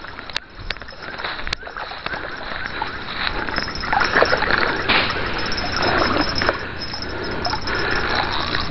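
A hooked fish splashing and thrashing in the shallow river water as it is reeled in to the bank, the splashing strongest around the middle. A few sharp clicks come in the first two seconds.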